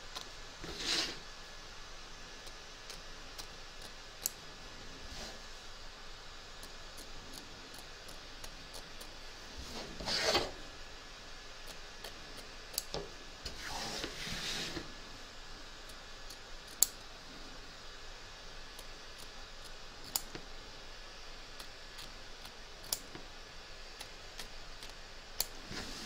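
Small scissors trimming cotton appliqué fabric close to the stitching: scattered sharp snips, with a few short rustles of fabric and stabiliser being handled.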